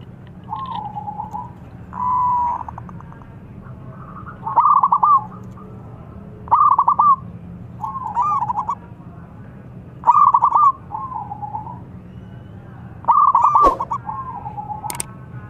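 Zebra dove (perkutut) singing: short phrases of rapid, stuttering coo notes, repeated about every two seconds, some phrases much louder than others.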